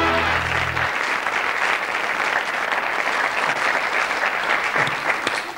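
Studio audience applauding steadily, the applause fading out near the end. The low closing note of the show's theme music cuts off about a second in.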